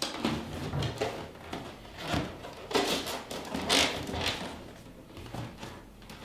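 Corflute (corrugated plastic) panels of a Ceracell Handy Nuc box being opened out, folded and pushed through slots by hand: several short, uneven scrapes and rustles of plastic sliding against plastic.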